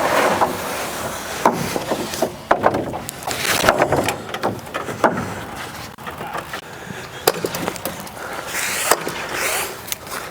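Wooden roof trusses knocking and scraping against each other as they are handled, with irregular sharp knocks.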